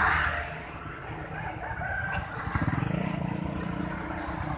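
Motorbike traffic: small motorbike engines running and passing close by, with a rush of noise at the start and an engine's low, fast pulsing in the second half.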